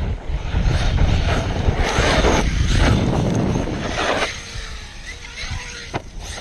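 Heavy wind rumble on the microphone over an ARRMA Kraton RC truck running on loose dirt, its electric motor and tyres surging several times, with a faint sliding motor pitch late on and two sharp knocks near the end.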